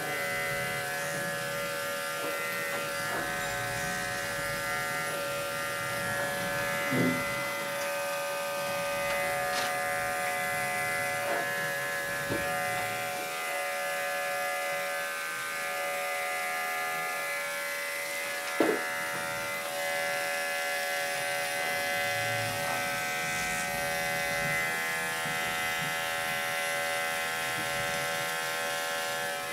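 Electric dog-grooming clippers running steadily, a buzzing hum, as they trim the hair between a dog's paw pads. Two brief louder knocks come about seven and nineteen seconds in.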